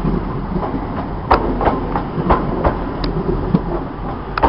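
Train wheels clacking over rail joints and points, a string of irregular sharp knocks over a steady rumble of a train moving through the station.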